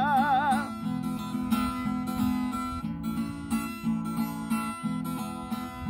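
A man's sung note, held with vibrato, ends under a second in. Then an acoustic guitar is strummed alone as an instrumental interlude.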